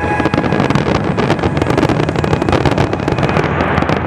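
Fireworks display: a dense, rapid barrage of bangs and crackling from many gold shells bursting together, starting suddenly.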